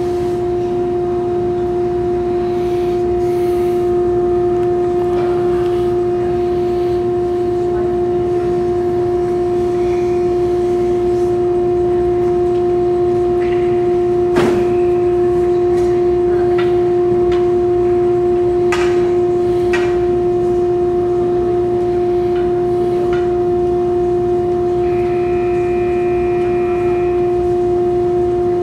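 A steady, unbroken droning tone at one pitch over the noise of an ice hockey game, with a single sharp crack of play about halfway through and a few fainter knocks after it.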